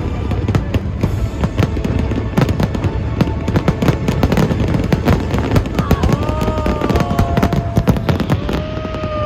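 Aerial fireworks display going off: a dense, continuous run of crackling and bangs over a low rumble. Past the middle, long held tones come in and drop in pitch near the end.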